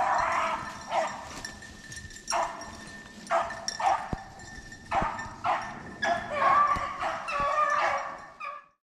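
Beagles baying, about nine calls, the later ones drawn out, cutting off suddenly near the end.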